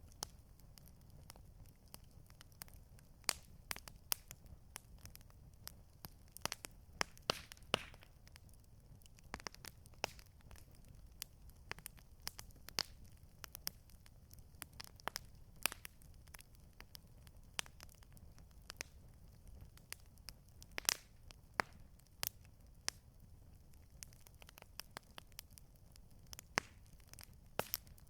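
Campfire crackling: irregular sharp pops and snaps, several a second at their busiest, over a faint low rumble.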